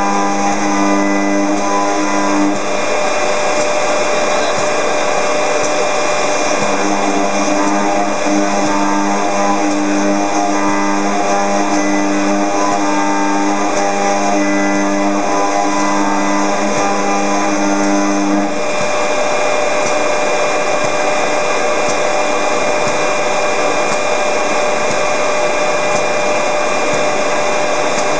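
High-speed milling spindle on an industrial robot machining aluminium: a steady whine over machining noise. A lower hum comes and goes, then stops about two-thirds of the way through while the spindle keeps running.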